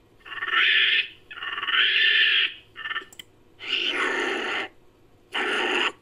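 Homemade imitation of long-tailed macaque calls: five calls of about half a second to a second each, separated by short gaps.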